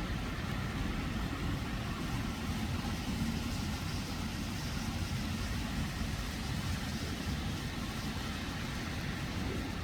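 Rain falling steadily over an even, low rumble, with no break or change.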